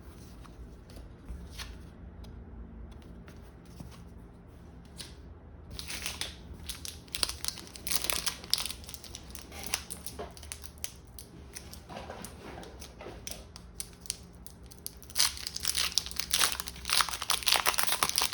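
Crinkly foil wrapper of a Pokémon card booster pack being handled and torn open. After a few quiet seconds with light clicks, the crackling starts about six seconds in and grows busiest and loudest near the end.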